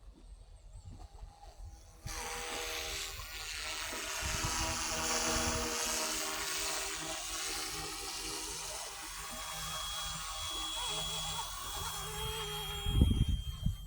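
Radio-controlled model Huey helicopter's electric motor and rotor whining steadily. The sound cuts in suddenly about two seconds in, and a high steady tone joins it later. Wind buffets the microphone near the end.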